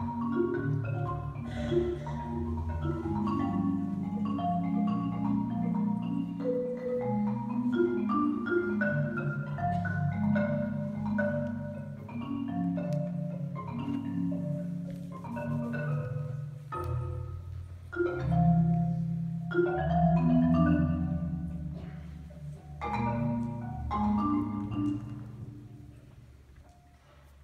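Solo marimba played with mallets: runs of struck notes over low, repeated bass notes, dying away near the end.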